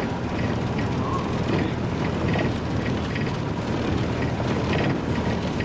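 Bus engine running with a steady rumble and road noise, heard from inside the passenger cabin.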